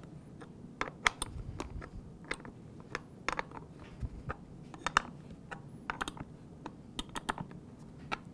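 Irregular light metallic clicks of a wrench turning the nut on the saddle clamp of a bicycle seat post, tightening it.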